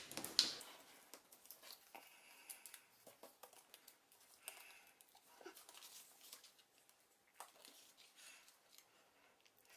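Faint paper-handling sounds: small scattered ticks and light rustles as foam adhesive dots are stuck onto a card panel and the panel is set down and pressed onto a card base.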